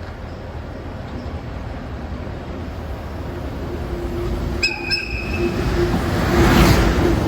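Freight train approaching and passing, its rumble growing steadily louder. About two-thirds of the way in the locomotive gives a short high-pitched horn toot as a courtesy to the trackside watchers.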